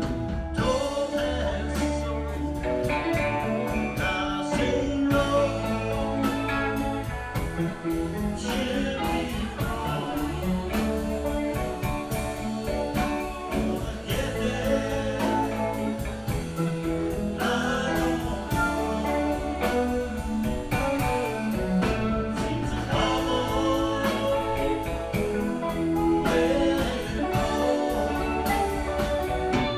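Live band playing a song with electric guitars, bass, drums and keyboards, with a voice singing over it and a steady drum beat throughout.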